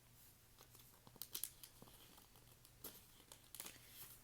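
Faint crinkling and a few light clicks of album packaging and photo cards being handled.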